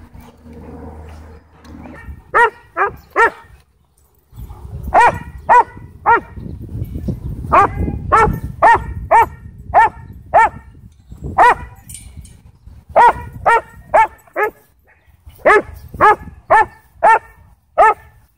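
German Shorthaired Pointer barking at another dog, about twenty barks in runs of three to six at roughly two a second, starting about two seconds in.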